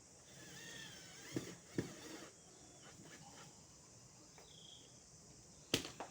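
A few sharp clicks or knocks: two close together about a second and a half in, and a louder one near the end, over faint high chirping.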